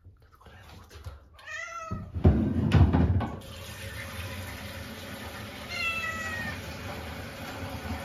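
A cat meowing twice while being bathed, the first call wavering and the second falling in pitch, over a steady rush of running water. A louder burst of noise comes about two seconds in, just before the water starts.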